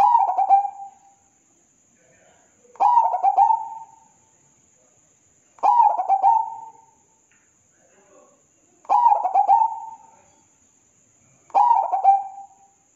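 Zebra dove (perkutut) cooing: five short rhythmic phrases of several quick notes each, about one every three seconds.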